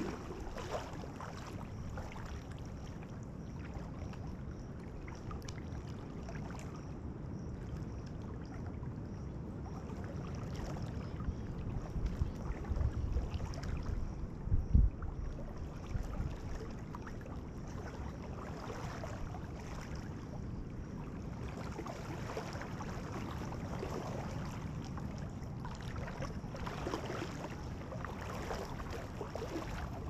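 Water sloshing and splashing around a person wading through a shallow creek, over a low wind rumble on the camera microphone. There are a few louder low bumps about halfway through.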